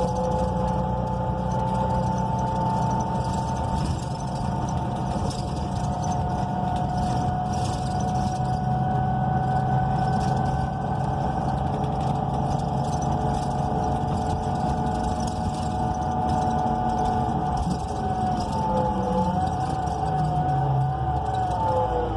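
Onboard sound of a transit bus's Cummins Westport L9N natural-gas engine and Allison automatic transmission running, a low hum under a steady whine. The whine's pitch wavers and falls near the end.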